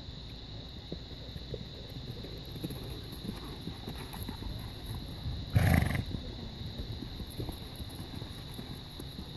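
Wind rumbling on the microphone while a horse standing under saddle gives one short, loud snort near the middle.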